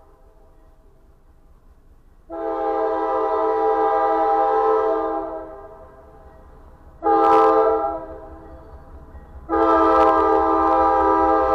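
Diesel locomotive's multi-tone air horn blowing the grade-crossing signal as the freight train approaches: a long blast, a short one, then a long blast that is held as the locomotive reaches the crossing. These are the last three parts of the long-long-short-long crossing warning.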